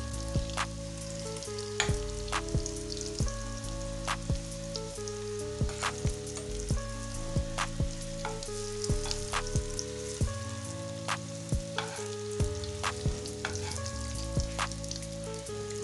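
Hot oil sizzling in a pan as breadcrumb-coated sausage rolls deep-fry, with frequent irregular crackling pops.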